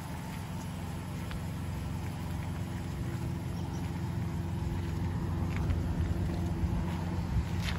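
2010 Dodge Grand Caravan's V6 engine idling steadily, slowly growing louder toward the end. A sharp click just before the end.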